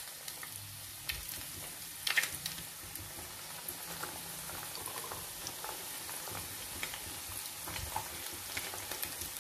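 Samosas deep-frying in hot oil in a kadhai: a steady sizzle with scattered crackles and pops, a louder burst of crackling about two seconds in.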